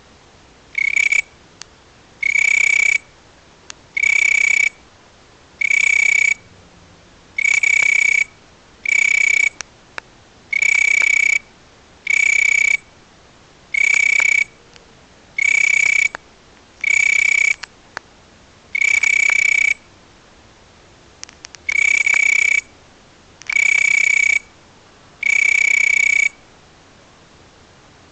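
A night-calling insect giving a loud, steady-pitched whistle in short bursts of half a second to a second, repeated about every one and a half to two seconds, some fifteen times.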